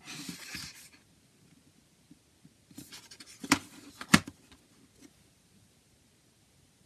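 A cardboard CD digipak being handled: a short scraping rustle as it slides in the fingers, then a run of light taps ending in two sharp knocks close together as it is laid flat on a table.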